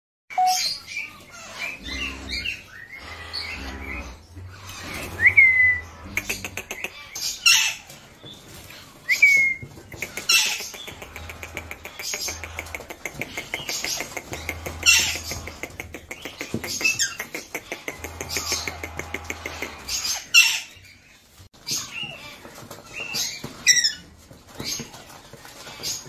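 A group of young Alexandrine parakeets calling all at once: harsh squawks and screeches over rapid chatter, with a couple of short rising whistles.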